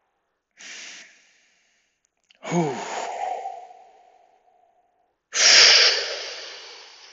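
A man breathing deeply and audibly while holding a hip stretch, working to loosen a tight hip: a short soft breath, then a long sighing breath with his voice in it, then a loud rushing breath about five seconds in that slowly fades.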